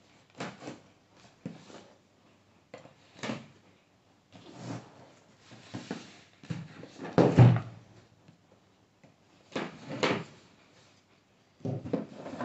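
Cardboard packaging being handled: a shipping box opened and the printed inner box slid out and turned over, in a series of short scrapes and rustles. A louder, heavier thump comes about seven seconds in.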